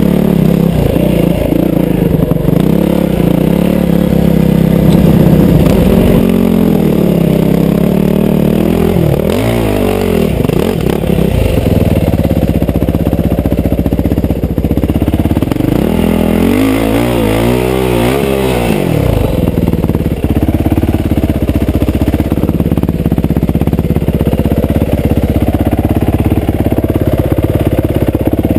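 Yamaha WR450F single-cylinder four-stroke dirt bike engine running under a helmet camera, the throttle blipped on and off so the pitch keeps rising and falling, with two sharper revs up and back down about a third and two thirds of the way through.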